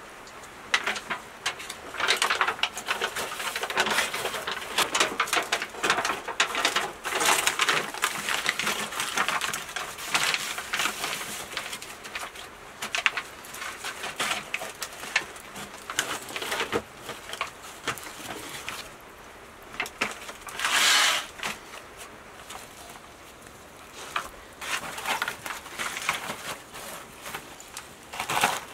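Aluminium foil crinkling and rustling in irregular bursts as it is folded by hand around a clay-packed fish, with one louder burst of crackling about two-thirds of the way through.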